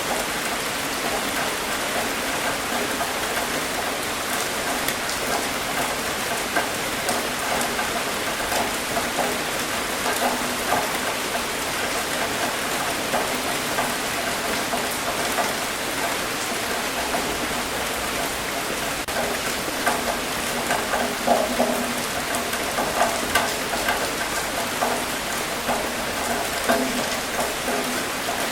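Steady rain falling on a hard surface, a continuous hiss with many irregular individual drop patters.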